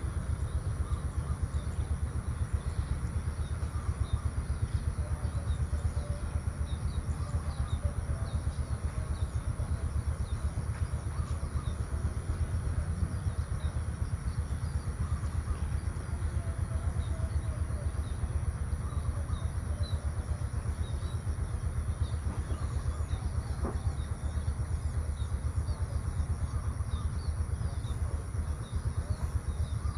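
Outdoor morning ambience: a steady low rumble with scattered faint bird chirps over it and a constant thin high-pitched tone.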